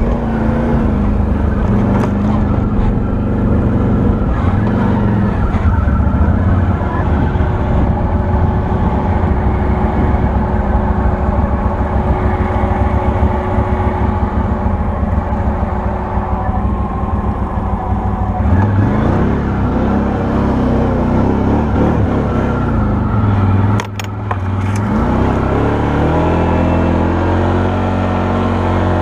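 Can-Am Outlander 1000 XT-P ATV's V-twin engine running under way on the trail. The revs rise and fall a little past halfway, with a brief drop in level about four-fifths through, then the engine pulls steadily again.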